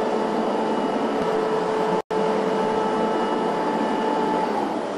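Steady factory machinery hum on a car assembly line: a whirring noise with a steady hum tone through it. The sound cuts out for an instant about two seconds in, and one of the hum tones stops near the end.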